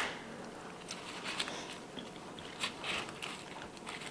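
Husk of a cooked ear of corn being peeled back by hand: faint, irregular dry rustling and crackling with a few small snaps.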